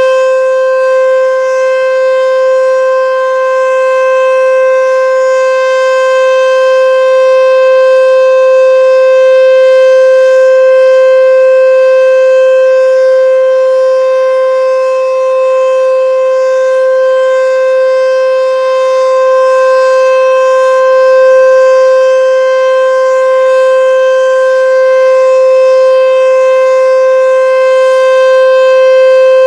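Super Sirex single-tone outdoor warning siren sounding a steady full-alert tone, held at one pitch with rich overtones. Its loudness swells and dips slightly.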